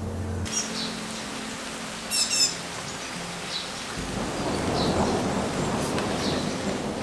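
Steady rain with a low roll of thunder that swells about four seconds in, and birds chirping a few times, most loudly about two seconds in.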